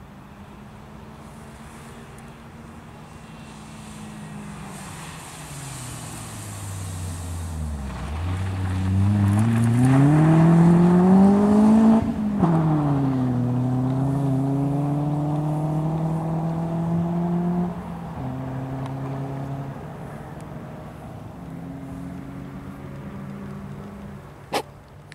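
Rally car engine passing: its note falls as it slows, then revs climb sharply to the loudest point, with a quick gear change about twelve seconds in. Revs rise again in the next gear, drop off, and the engine carries on more quietly as the car moves away. A single sharp click near the end.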